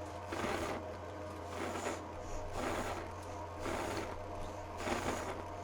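Repeated mechanical strokes, about one a second, each a short noisy rasp, over a steady low hum.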